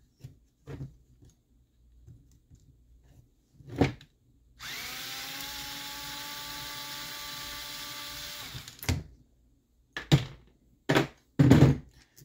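Handheld power driver running steadily for about four seconds, driving screws out of an RC truck's chassis, with a slight rise in pitch as it spins up. Sharp knocks and clicks of parts being handled come before and after it, the loudest near the end.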